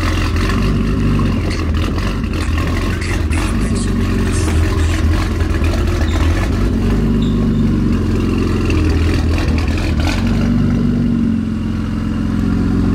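BMW M4's twin-turbo straight-six running loud through a newly fitted aftermarket valved exhaust with an equal-length mid pipe, idling with a few light revs that rise and fall. Only one of the exhaust's two valves can be open at a time, which the owner blames on a faulty valve control box.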